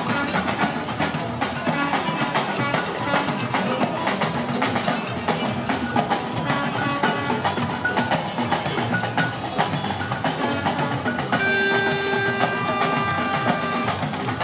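Samba percussion playing a fast, dense rhythm of drum strokes, with a held tone sounding over it for about two seconds near the end.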